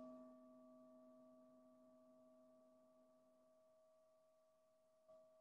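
Faint ring of a meditation bell dying away slowly, several steady tones fading together. A soft tap sounds near the end.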